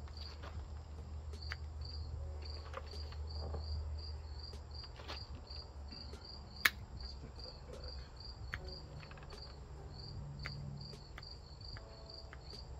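Crickets chirping steadily, about three chirps a second, while hand pruners snip at juniper branches with sharp, scattered clicks. The loudest click comes about halfway through.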